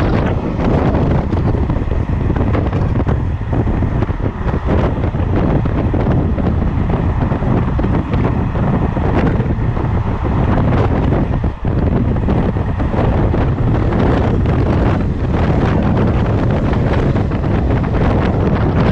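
Heavy wind buffeting the microphone held out of a moving train's carriage window, over the steady low rumble of the coaches running on the track.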